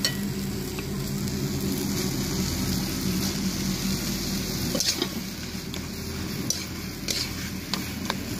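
Thick taro mash sizzling in a large iron kadai over a wood fire, with a few sharp knocks and scrapes of a wooden spatula against the pan in the second half, over a steady low hum.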